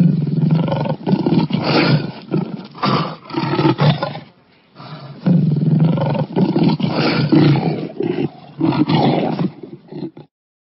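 Lion roaring: a run of deep, loud roars that break off briefly about four seconds in, then start again and stop abruptly near the end.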